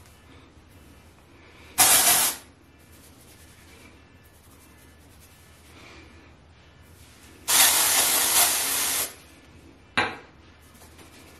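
Aerosol dry shampoo spraying in three hissing bursts: a short one, then a longer one of about a second and a half, then a brief final puff.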